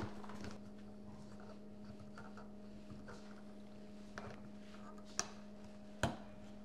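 Quiet handling of solid electrical wires at a wall switch box as two white neutral wires are twisted together: a few faint clicks and scrapes, two sharper clicks near the end, over a steady low hum.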